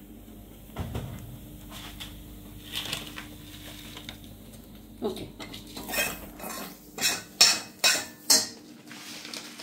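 A steel spoon clinking and knocking against a stainless steel pot of dry-roasting masala. It is light and scattered at first, then comes as several sharp, loud clinks in the second half.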